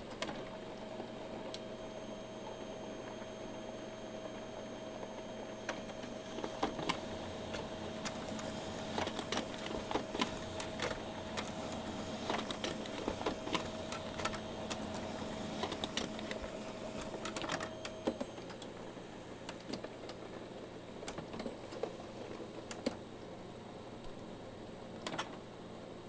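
Printer printing: a steady whine with a run of clicks and clatters from the paper feed and print mechanism. The whine stops about 18 seconds in, and scattered clicks follow.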